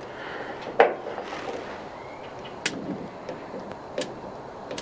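Blackstone gas griddle's burner knobs and igniter being worked to light the burners: four sharp clicks spread over about four seconds, over a faint steady background.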